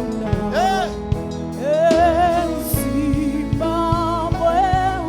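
Gospel worship music: a singer holding long, wavering notes over sustained chords, with a steady low beat that strengthens about two seconds in.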